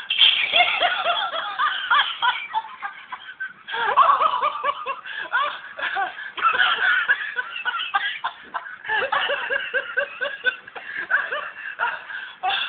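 Laughter from a motorized plush toy dog as it rolls about: fast, giggling bursts of laughing with a brief pause about three seconds in.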